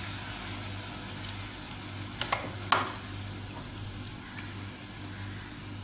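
Chocolate syrup sizzling steadily on a hot iron sizzler plate, under a brownie topped with a scoop of ice cream. Two sharp clicks come a little past two seconds in.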